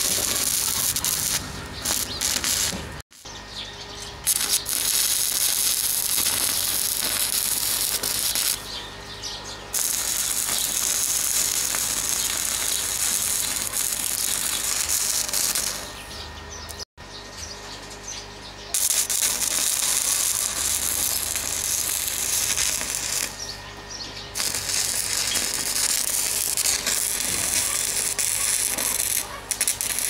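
Stick-welding arc from 6013 rods on steel, crackling steadily in several long runs. It drops away for a second or two between runs as the arc is broken.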